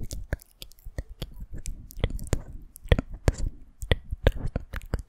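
Close-up ASMR trigger sounds: quick, irregular wet clicks and soft taps, about three or four a second, right at the microphone.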